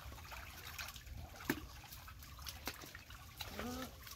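Faint sloshing and trickling of shallow muddy pond water stirred by hands groping in the mud, with a few small splashes.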